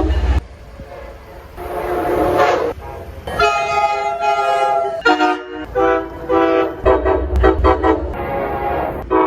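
Train air horn sounding a series of blasts, each a chord of several notes: a long blast a few seconds in, then a string of shorter blasts. A train rumbles underneath near the end.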